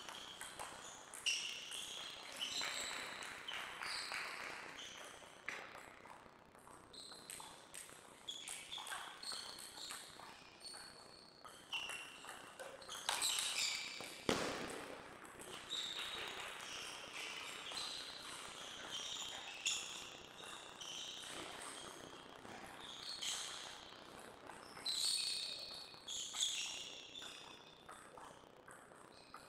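Table tennis rallies: the ball clicking off the bats and the table in quick exchanges, with short pauses between points and a louder hit about halfway through.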